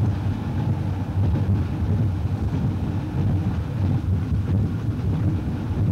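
Steady low rumble of a train running at speed, heard from inside the driver's cab, with some wind noise.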